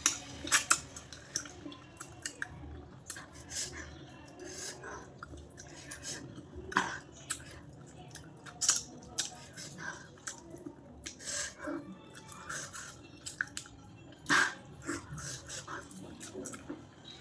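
A person chewing food close to the microphone, with irregular sharp mouth clicks and crunches.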